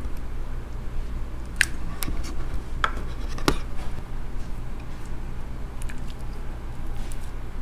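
Translucent orange slime being worked out of a plastic cup into the palm and squeezed, giving a few sharp sticky clicks and pops between about one and a half and three and a half seconds in, with fainter ticks after.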